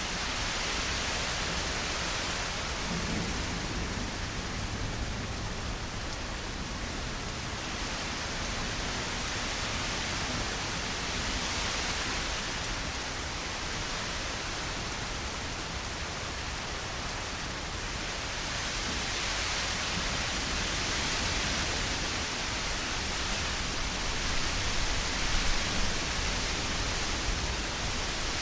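Steady rushing hiss that slowly swells and eases every few seconds, with a few brief louder crackles near the end.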